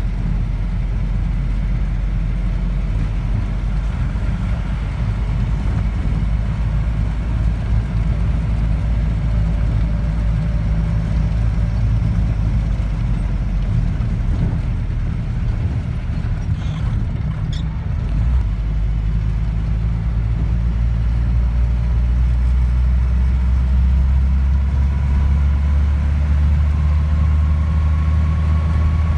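A vehicle's engine and road noise while driving, a steady low drone that gets slightly louder in the last few seconds.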